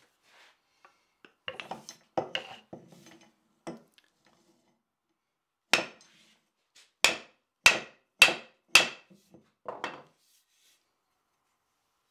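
Wooden mallet striking the end of a wooden axe handle to drive it into the forged head of a shepherd's axe: a few softer knocks, then five sharp raps about half a second apart and a last lighter one.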